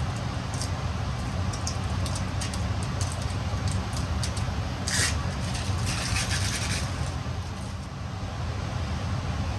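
Decal being rubbed and smoothed down onto a panel: short scraping strokes, the loudest a little past halfway, over a steady low rumble.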